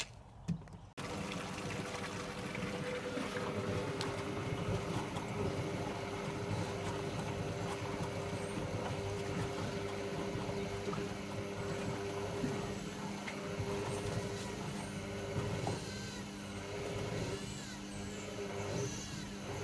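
Servis Sapphire 6055 washing machine running: a steady motor hum with sloshing water, starting abruptly about a second in.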